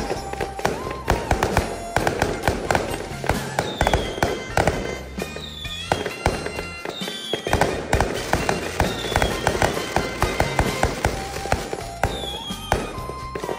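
Aerial fireworks going off in a rapid, irregular string of sharp bangs and crackles, with music playing underneath.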